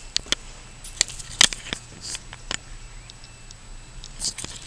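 Handling noise from a handheld camera being swung around: about ten scattered light clicks and taps at uneven intervals, the loudest about a second and a half in.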